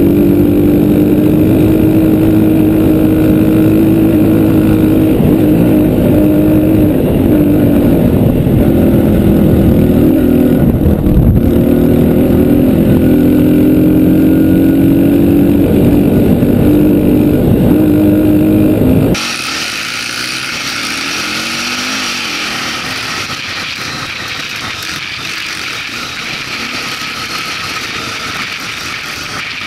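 Dirt bike engine running steadily at speed, close to the mount, its pitch wavering slightly with the throttle. About two-thirds of the way in it cuts suddenly to a quieter, hazier mix of engine and wind noise from an ATV riding behind a small dirt bike.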